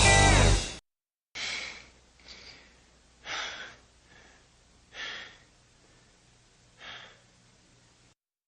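Music cuts off abruptly just under a second in. Then a person breathes out heavily in a series of five or six sighs or breaths, about one every second or two, each fading away.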